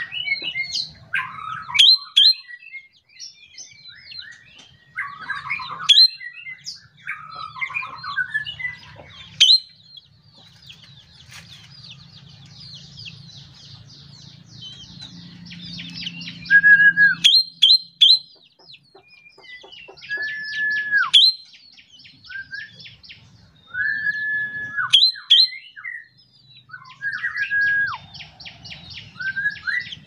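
Caged drongo (srigunting kantil) singing a varied song: sharp chirps, long runs of fast chattering notes, and several held whistled notes, each dropping in pitch at the end.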